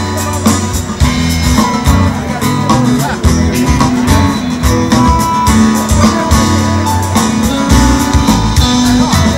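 Live rock band playing an instrumental passage: drum kit, acoustic and electric guitars, and keyboards, over a steady low bass line.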